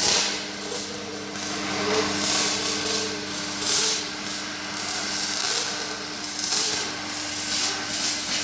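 MIG welding arc from a Kemppi 4200 semi-automatic welder running 1.2 mm wire on thick steel, crackling continuously and swelling and fading in loudness, over a steady low electrical hum.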